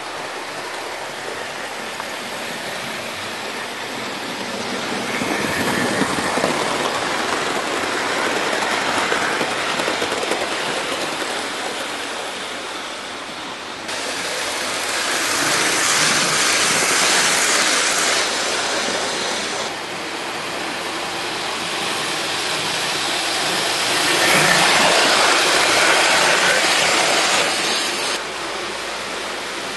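Hornby OO gauge model train, a Princess Royal Class locomotive hauling its coaches, running fast round the track. The rush of wheels on the rails and the motor swells and fades three times as the train passes close by.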